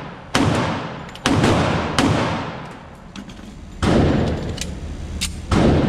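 Gunshots at a range: five loud shots at uneven intervals, each trailing off in a long echo, with fainter cracks from other shooters in between.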